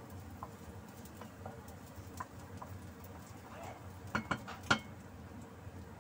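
Wooden spoon stirring chopped garlic in a frying pan, with three sharp knocks a little past four seconds in as the spoon strikes the pan.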